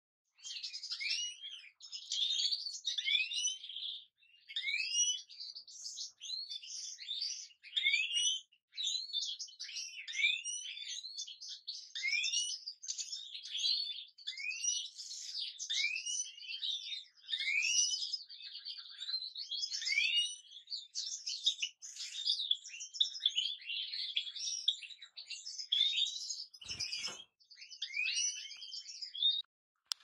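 European goldfinch song: an almost continuous twittering of quick rising and falling notes in short phrases with brief gaps. A single brief thump comes near the end.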